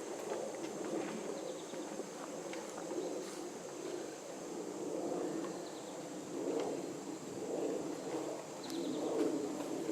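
Birds calling: low calls that repeat more often in the second half, with a few faint, short high chirps.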